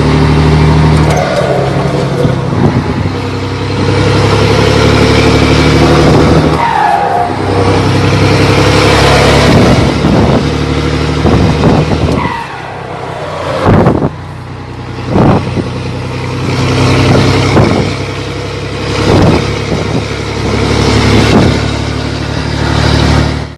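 Scania 113 truck's six-cylinder diesel engine being driven up through the gears, pulling with a deep, steady rumble. The engine note drops off and picks up again at each gear change, several times in the second half.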